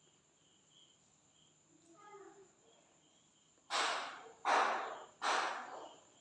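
Three loud, sharp breaths close to the microphone, each about half a second, in the second half, as a person tastes food; faint insect chirping before them.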